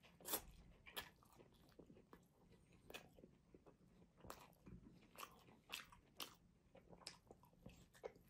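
Close-miked chewing and crunching of a mouthful of grilled kebab with fresh herbs, heard as irregular crisp crunches and wet mouth clicks.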